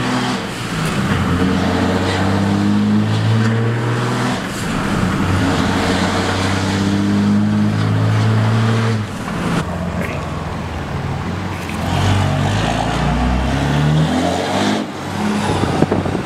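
2005 Dodge 3500's Cummins turbo diesel, with the turbo's silencer ring removed, accelerating through the gears, heard inside the cab: the engine note climbs, then drops at each gear change, about four and a half and nine seconds in.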